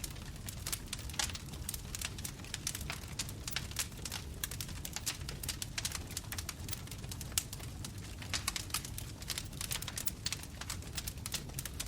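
Bonfire crackling: wood burning with frequent, irregular sharp pops and snaps.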